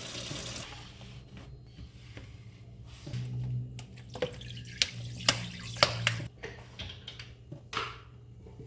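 Kitchen tap water running into a sink, shut off about half a second in, followed by scattered clinks and knocks of dishes and utensils being handled.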